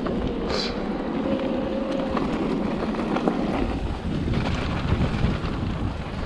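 Wind buffeting the microphone on a mountain bike riding down a trail, over a steady rumble from the tyres and bike on rough ground, with a few short rattles and clicks.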